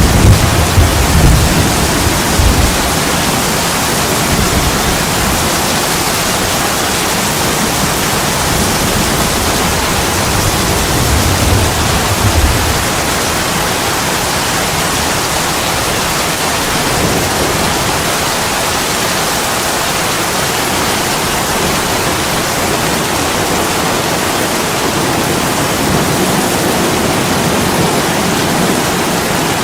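Steady heavy rain pouring onto an attic window, a dense even hiss. Deep rumbles swell in the first few seconds and again about eleven seconds in.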